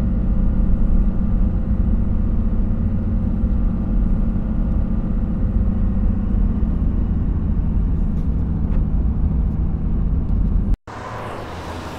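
Steady low drone of a car driving at highway speed, heard from inside the cabin. It cuts off abruptly about eleven seconds in, giving way to quieter room tone.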